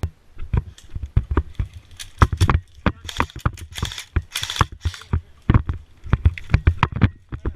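Quick, irregular thumps, three or four a second, like hurried footsteps, with two short bursts of rustling about three and four and a half seconds in.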